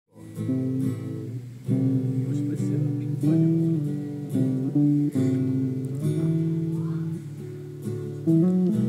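Two guitars played together: strummed chords that ring on, with the chord changing every second or so.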